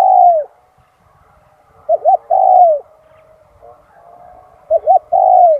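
Spotted dove cooing: a repeated call of two short coos followed by a longer, falling coo, about every two and a half seconds, with fainter dove calls behind.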